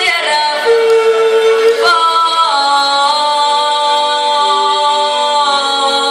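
A girl's singing voice holding long, sustained notes that step down in pitch partway through, over backing music.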